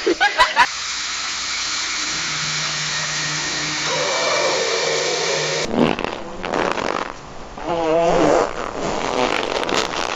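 A run of comedic fart sound effects. First a few quick sputters, then a long hissing one lasting about five seconds, then several shorter ragged ones, one of them with a wobbling pitch.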